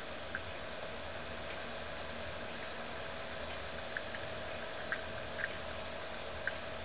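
3% hydrogen peroxide fizzing over silver refining crystals: a steady soft hiss of bubbling, with a few faint pops. The peroxide is reacting with palladium co-plated in the silver crystals, a sign that the silver carries palladium.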